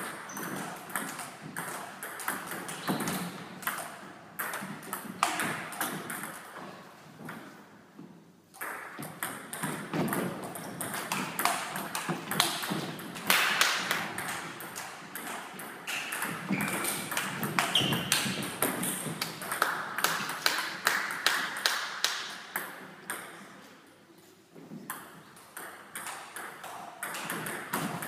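Table tennis rallies: the ball clicking back and forth off the paddles and the table top in quick runs of sharp ticks, broken by short pauses between points.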